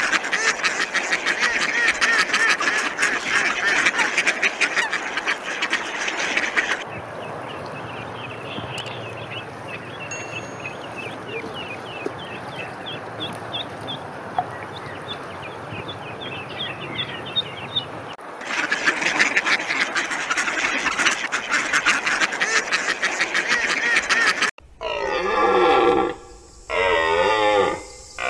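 A flock of waterfowl calling together in a dense, continuous chatter. In the middle it gives way to a quieter stretch with a run of quick high chirps. Near the end a different animal's loud pitched calls break in.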